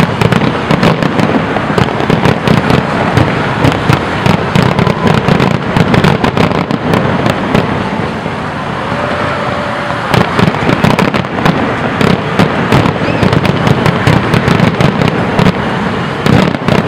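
Aerial fireworks display: a continuous rapid barrage of shell bursts and bangs, easing briefly about eight seconds in and then picking up again.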